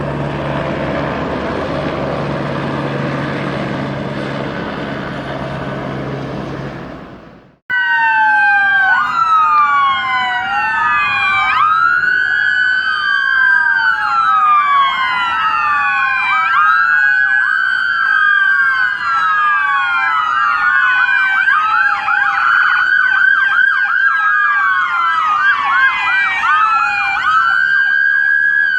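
A steady engine drone cuts off about seven seconds in. Then several emergency-vehicle sirens sound at once to the end, their slow wails and quicker yelps overlapping as they rise and fall.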